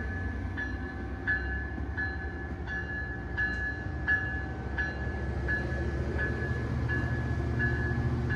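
COASTER double-deck commuter train rolling along the platform, with a low rumble that builds toward the end. Over it, a bell dings steadily, about three times every two seconds.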